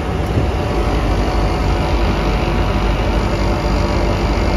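York package air-conditioning unit running steadily with its compressor on: an even low hum and mechanical rush.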